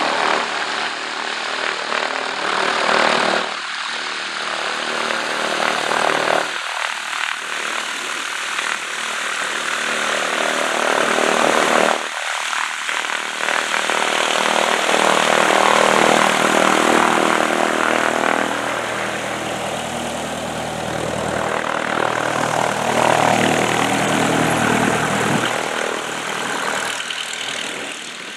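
Cessna 172 single-engine propeller plane taxiing at low power, a steady engine and propeller drone that grows louder as it passes close by, loudest about halfway through.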